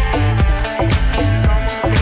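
Music soundtrack: a dance track with a steady drum beat, deep bass and a repeating melodic line, without vocals.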